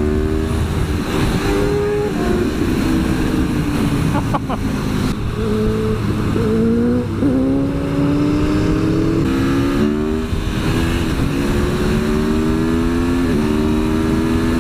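Aprilia Tuono V4 1100's V4 engine pulling under acceleration, its pitch climbing and dropping back at each upshift, about four gear changes in turn. Heavy wind buffeting on the unshielded helmet microphone runs underneath.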